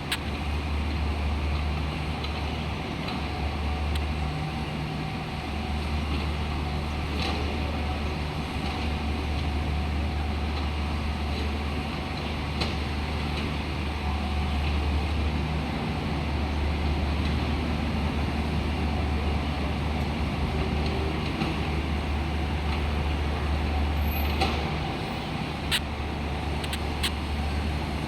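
Mini excavator's diesel engine running steadily under work, its drone rising and dipping every few seconds as it digs and loads soil. A few short sharp knocks, several near the end.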